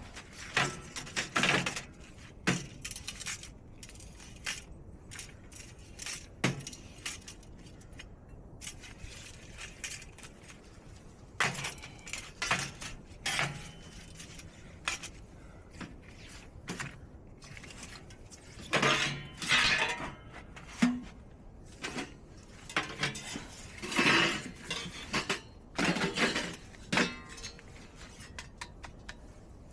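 Metal camping gear and cookware being handled: irregular clinks, knocks and clatter, busiest in the second half.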